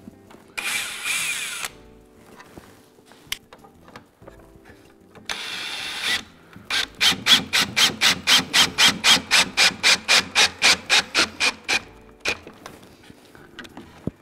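Worx 20V cordless drill/driver driving a long wood screw into a wooden table leg: two short runs of the motor, then a fast, regular clicking, about five a second, for several seconds, and one more short run near the end.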